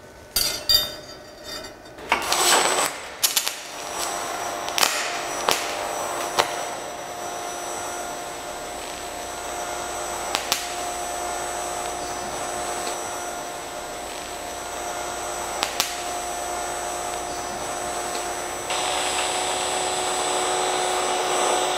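TIG welding arc from a Paton VDI-250P inverter welder, with argon shielding gas, making a steady hissing buzz with a few faint steady tones in it. It starts after a few knocks and clicks, has occasional sharp ticks, and grows louder about three seconds before the end.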